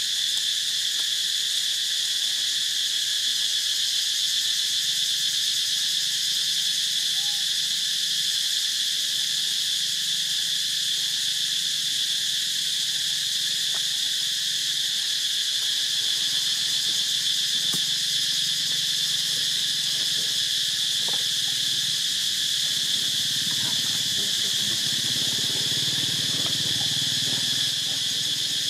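Steady, shrill insect chorus droning without pause at one high pitch, with fainter overtones above and below.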